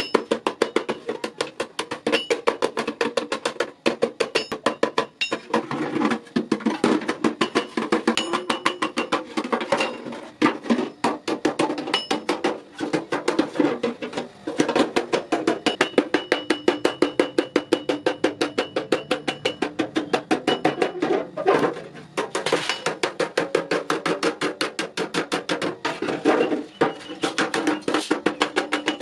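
Hammer tapping rapidly on sheet metal, several strikes a second in a steady run with short pauses, the metal giving a faint ring.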